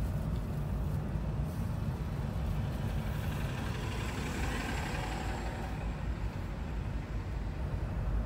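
Steady low rumble of motor-vehicle traffic, with a hiss that swells and fades about four to five seconds in, like a vehicle passing close by.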